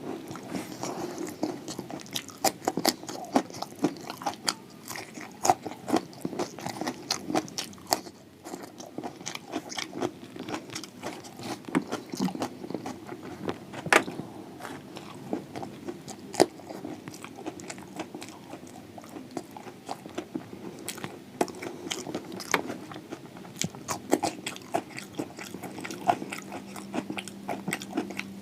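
Close-miked chewing of crispy samosa (singara), with irregular sharp crunches several times a second.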